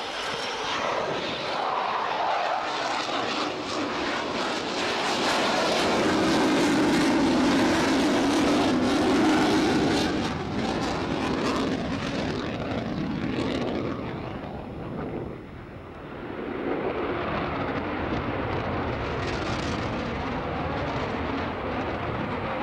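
Panavia Tornado jet passing during a flying display, its twin Rolls-Royce Turbo-Union RB199 turbofans making a loud jet rush. The rush builds to its loudest about halfway through, fades briefly, then swells again.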